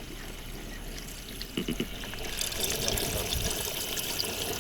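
Liquid being poured in a steady trickling stream, getting louder from about halfway in, with a few short clinks before it.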